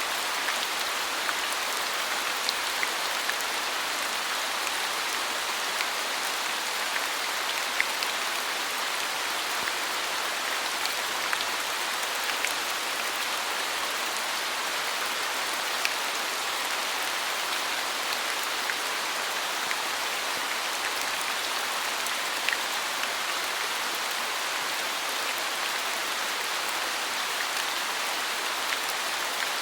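Steady rain falling, an even hiss with occasional louder individual drops ticking throughout.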